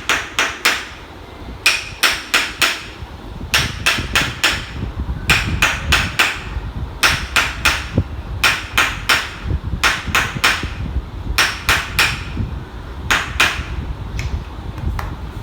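Sharp knocking strikes in quick bursts of three or four, a burst every one to two seconds, from percussive work on the patient during a chiropractic neck treatment.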